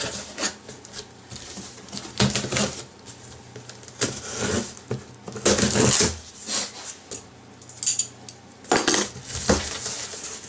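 A large cardboard box being opened by hand: packing tape pulled loose and the cardboard flaps scraped and folded back, in a string of irregular rustles and scrapes, the loudest about halfway through and again near the end.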